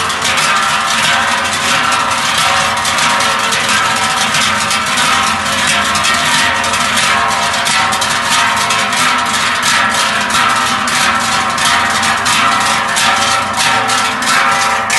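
A group of Treichler swinging large hammered sheet-metal cowbells (Treicheln) in step as they walk, a dense, steady clanging of many bells at once with a mix of held bell tones.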